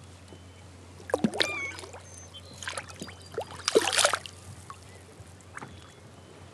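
Kayak paddle strokes splashing in the water: three splashes about a second and a half apart, the last the loudest, with water dripping from the blade.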